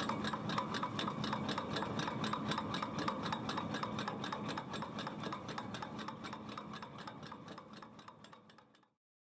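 Rapid, even mechanical ticking over a steady low hum, fading gradually and ending in silence near the end.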